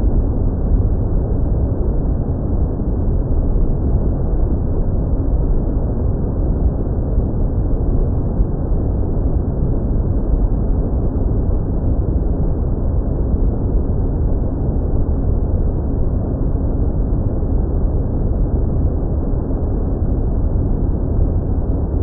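Airflow rushing over the onboard camera microphone of a Maxwell S2 Mini UAV in flight, a loud, steady, deep rumble, with a faint steady hum underneath from the plane's propeller drive.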